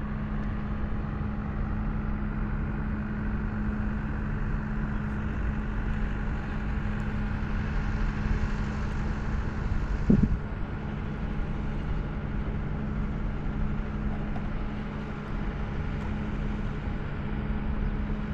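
A steady low motor hum with no change in pitch, and a single short knock about ten seconds in.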